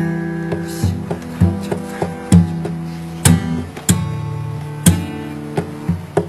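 Acoustic guitar being strummed, with a chord struck every half second to a second and ringing on between strokes.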